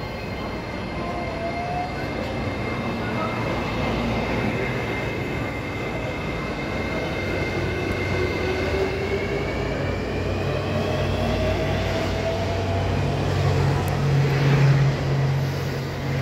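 E491 series 'East i-E' electric inspection train pulling out and rolling past at low speed, its wheels rumbling on the rails. A whine rises in pitch as it picks up speed, and a low hum grows louder near the end.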